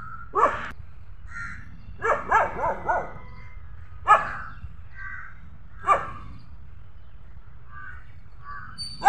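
Dogs barking at the toy lion in short, separate barks: one, then a quick run of three, then two more spaced out.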